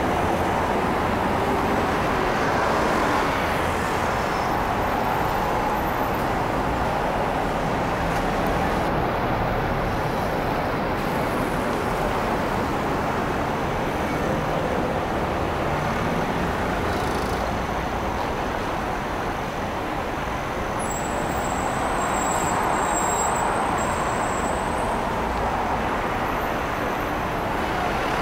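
Steady city road traffic: cars passing with tyre and engine noise that swells gently now and then as vehicles go by.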